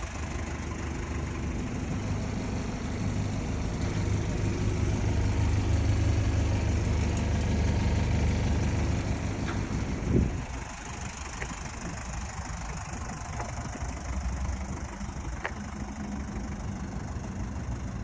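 Mazda Bongo Brawny's diesel engine running steadily, growing louder through the first half. A short sharp sound comes about ten seconds in, after which the engine runs on quieter at idle.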